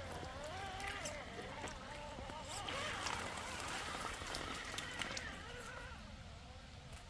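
RC rock crawler's Hobbywing 1800 SE brushless motor whining, its pitch wavering up and down with the throttle, as the truck churns through shallow creek water with small splashes; the whine fades away after about five seconds.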